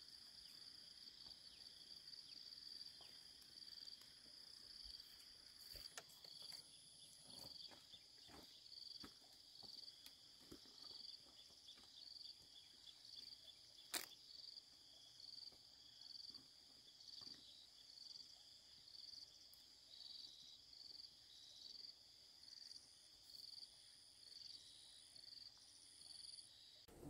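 Faint insect chorus: a steady high-pitched shrill that pulses about once a second. A few soft ticks, and one sharp click about halfway through.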